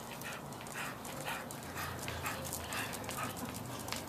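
A dog panting in quick, even breaths, about three a second.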